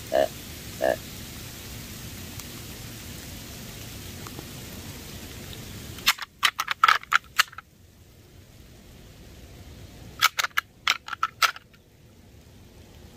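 Deer grunt tube blown twice, two short grunts right at the start; then two bouts of rattling antlers clacked together, quick clattering knocks around the middle and again near the end, imitating two bucks testing each other. A steady hiss of light rain runs under the first half.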